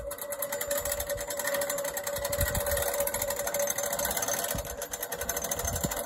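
Hand-cranked ratchet winch, of the boat-trailer kind, clicking rapidly and steadily as it is wound to drag a heavy log up the ramps onto the sawmill bed, over a steady mechanical hum.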